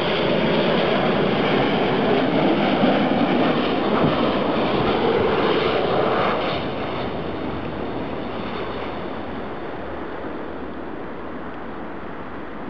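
Jet airliner's engines on short final, a loud, steady jet noise that drops off about six and a half seconds in as the aircraft reaches the runway. A duller, fading rumble follows as it rolls out.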